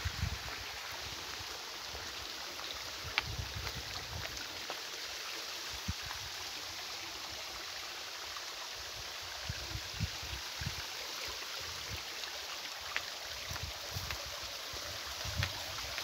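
Shallow rocky creek running, a steady even rush and trickle of water, with scattered soft low thumps and a few faint clicks.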